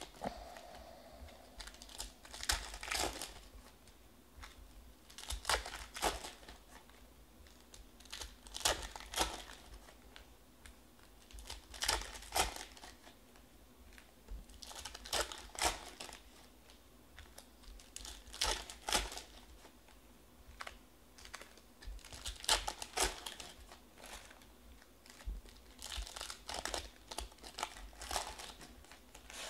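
Foil trading-card packs being torn open and crinkled by hand, a short burst of crackling about every three seconds.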